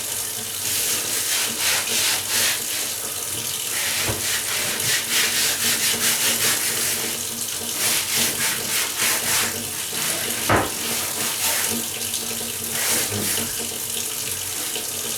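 Wet sponge and water sloshing and rubbing in repeated strokes, the sound of hand-washing a dirty floor with a soaked sponge.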